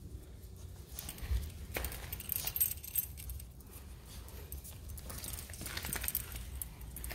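Small dog scrabbling and rubbing along a tile floor: claws clicking and scuffing on the tiles in scattered bursts.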